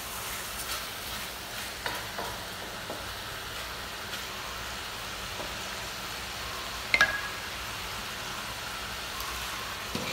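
Chicken, bell pepper and onion sizzling steadily in a stainless steel wok as they are stirred with a wooden spatula, with a few light knocks. About seven seconds in comes a sharp metallic clink with a short ring, the loudest sound, and near the end a glass lid is set on the wok with a click.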